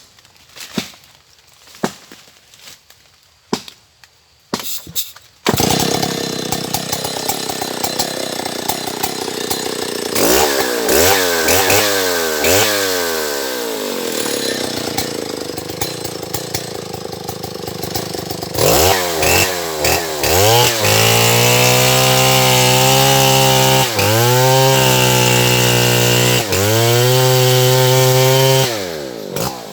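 Stihl MS070 two-stroke chainsaw: a few sharp clicks, then the engine starts suddenly about five seconds in and runs, with the throttle blipped several times so the pitch rises and falls. From about two-thirds of the way through it is held at high revs with a few brief dips.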